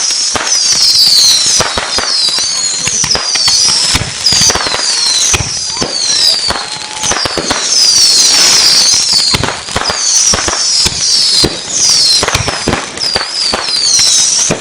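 A barrage of fireworks going off: high whistles sliding up and down overlap one another over a dense, irregular run of bangs and crackles.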